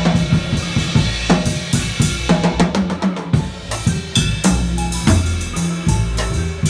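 Jazz drum kit played live in a busy pattern of snare, bass drum and cymbal strokes, with double bass notes underneath.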